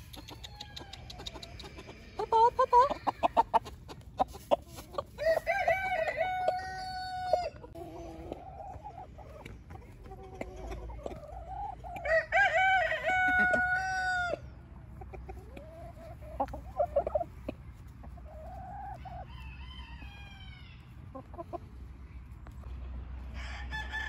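A rooster crowing twice, each crow about two and a half seconds long and some seven seconds apart, with chickens clucking in between.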